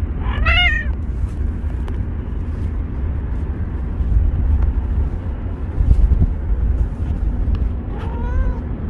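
A young orange tabby cat meows twice: once clearly just after the start, and once fainter near the end. Under both runs a steady low rumble.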